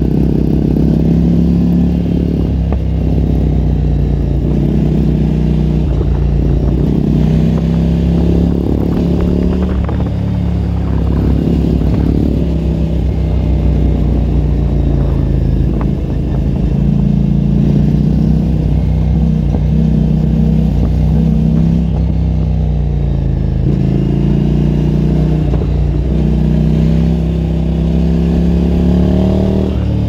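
Motorcycles riding at road speed: twin-cylinder engine note that rises and falls with the throttle several times, over steady wind and road noise.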